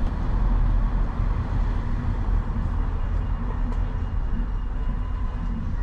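A moving vehicle's engine and road noise: a steady low rumble.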